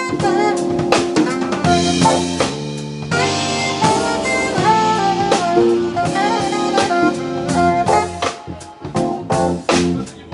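Live jazz quartet playing: saxophone, keyboards, electric bass guitar and drum kit, with a melody over a walking bass line and busy drum hits that grow denser near the end.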